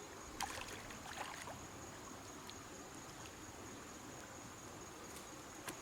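Flood-swollen river running steadily, with a constant high insect drone over it and a few brief knocks about half a second in, about a second in and near the end.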